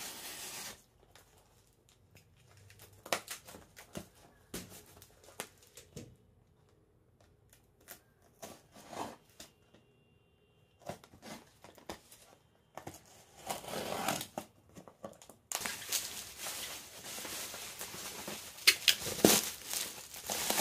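A tape-wrapped cardboard parcel being opened: a small knife scraping and slitting the packing tape in scattered scrapes and clicks, then, about three-quarters of the way in, tape and cardboard tearing and plastic bubble wrap crinkling as the contents are pulled out, the loudest part.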